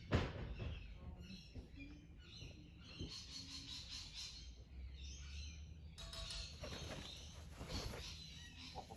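Birds chirping and calling outdoors, many short high chirps through the whole stretch, with one sharp knock right at the start.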